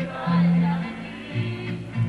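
Live Latin band music with a bass line stepping from note to note, and a voice singing into a microphone over it.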